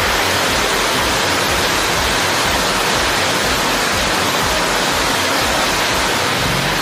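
Heavy rain pouring onto a wet road, a steady even hiss.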